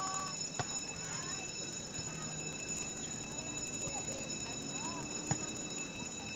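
Volleyball being hit during a rally: a faint sharp hit near the start and a louder one about five seconds in, over outdoor court ambience with faint voices and chirps and a steady high-pitched whine.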